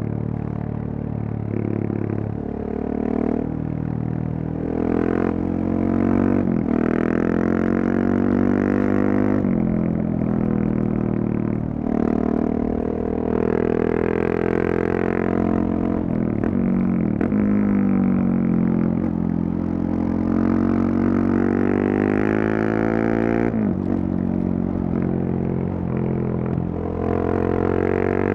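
KTM 690 Duke's single-cylinder engine through a Leovince decat pipe and slip-on exhaust, under way and revving: the engine note climbs repeatedly and drops sharply at each gear change, with stretches of easing off between pulls.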